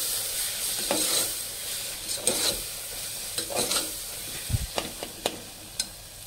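Onion-tomato masala with spices frying in a pressure cooker, stirred with a spoon: a steady sizzle broken by irregular scrapes and knocks of the spoon against the pot.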